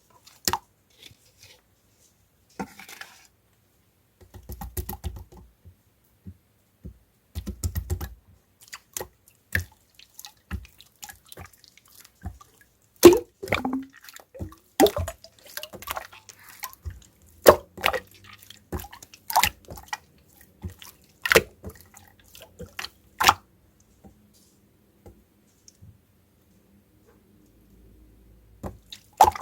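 Very watery clear slime being squished and poked by hand, making irregular wet pops and clicks, densest and loudest in the middle. A couple of short dull thumps from handling it come a few seconds in.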